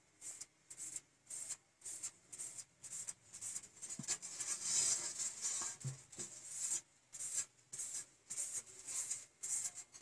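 Quick, repeated rubbing strokes of a hand and paper over a spray-painted board, about two to three short hissy swishes a second with a couple of light knocks between them.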